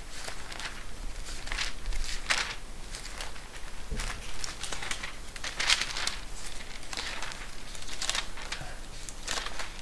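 Thin book pages being leafed through and handled, giving irregular short rustles and crinkles, while a Bible passage is looked up.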